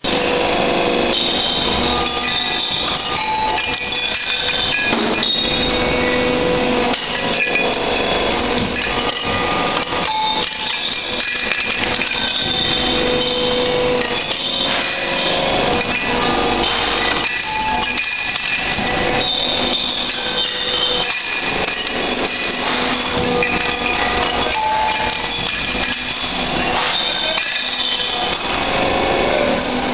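Sheet-metal pressing workshop noise: steel parts clanking and ringing without a break over the continuous din of machinery.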